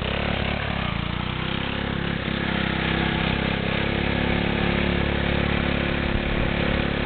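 Briggs & Stratton 3 hp single-cylinder lawnmower engine on a homemade beater tractor running at full throttle; its pitch rises over the first second or so and then holds steady.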